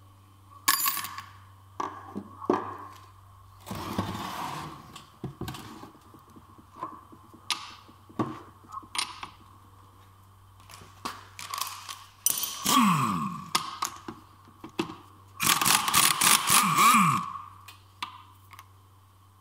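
Metal clinks, knocks and scrapes as hand tools and an aluminium manual gearbox casing are handled on a workbench, with a long scraping rattle about three-quarters of the way through as the loudest part.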